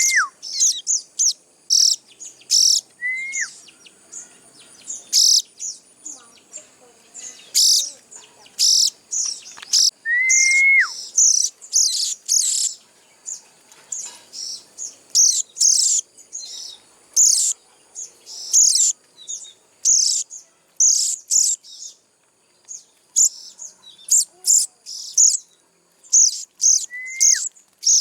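Young sogon birds' begging chirps: quick, high-pitched calls repeated over and over. Four times a lower whistle rises and then drops sharply.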